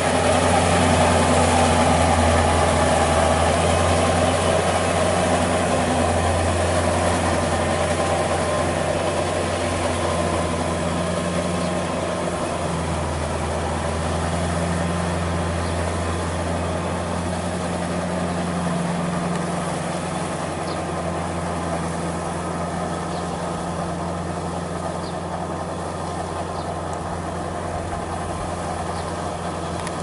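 Kubota L4508 tractor's four-cylinder diesel engine running steadily under load as it tills a flooded rice paddy, its steel cage wheels churning through the mud. The engine gets slowly quieter over the stretch.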